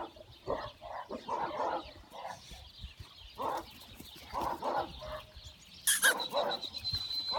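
Tosa Inu puppies yapping and whining in short separate yelps. A sharp click comes about six seconds in.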